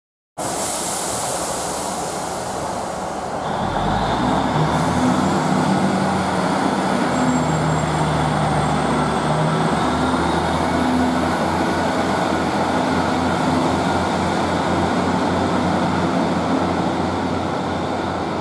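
Diesel multiple unit pulling out of the platform and accelerating away. About three and a half seconds in, a low rumble and wavering engine tones come in and the sound grows louder, with a faint high whine above the steady noise.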